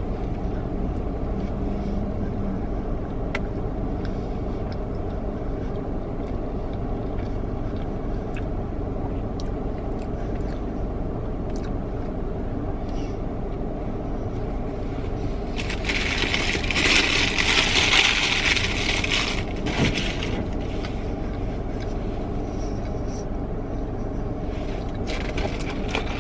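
Steady low hum of a car idling, heard from inside the cabin. About two-thirds of the way in comes a few seconds of louder crinkling and rustling.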